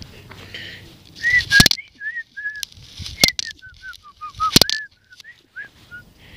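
A phone camera being handled on the grass: sharp knocks and rustling right on the microphone, three of them louder, about a second and a half apart. Through the middle runs a string of short high chirping notes, a few a second, dipping lower and rising again.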